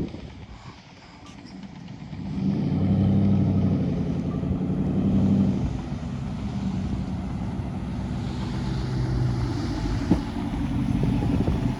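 Dodge Ram 1500's 5.7-litre Hemi V8 running through a Borla ATAK aftermarket exhaust. About two seconds in the exhaust note swells loud, holds for a few seconds, then settles to a steadier, lower drone.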